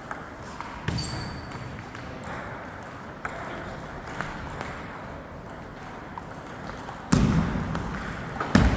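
Table tennis ball clicking off bats and the table in a rally, the hits coming at irregular intervals, with the clicks of other tables' rallies mixed in. About seven seconds in and again near the end come two heavier thumps, louder than the clicks.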